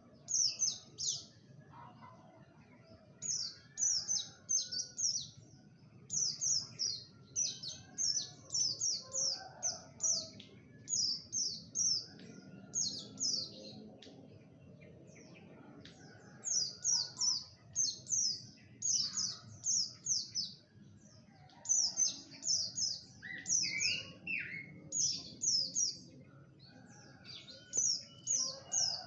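A songbird chirping in quick runs of three to six high, downward-sweeping notes, the runs repeated again and again with short pauses between them. About two-thirds of the way through, a few lower notes break in.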